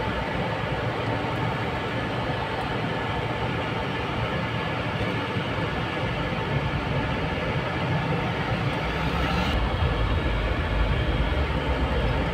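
Steady rumbling road noise, a vehicle running along a crowded street, with the low rumble growing louder over the last few seconds.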